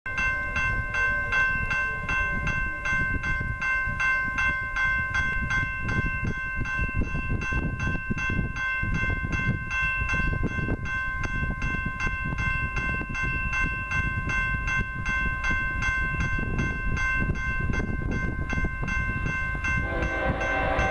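Distant approaching freight train: a steady low rumble under a high, bell-like ringing that pulses about twice a second. Near the end the locomotive's horn begins to sound.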